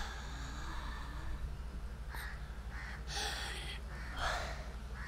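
A young boy yawning while rubbing his eyes: drawn-out, breathy inhales and exhales, the loudest breath near the end.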